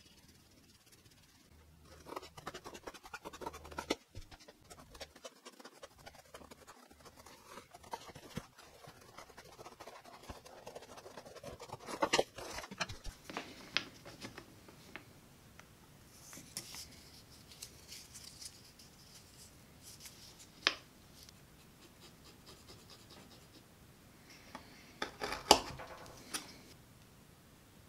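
Scratching and scraping of hand tools at a workbench: a pen tracing round a paper pattern, then a small knife cutting a piece of leather. A few sharp clicks, the loudest near the end.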